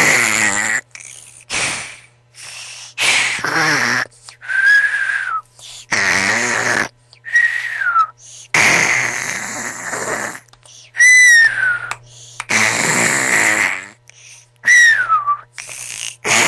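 A person snoring loudly: rattling snores alternating with high whistling breaths that slide down in pitch, four whistles in all.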